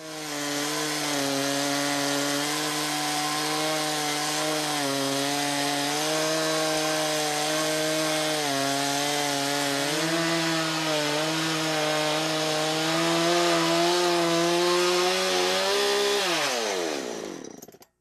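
Chainsaw on a Logosol Woodworker's Mill chainsaw mill ripping lengthwise through a log in a quartering cut, running steadily at high revs with slight dips as it cuts. Near the end it is released, and its pitch falls as it winds down and goes quiet.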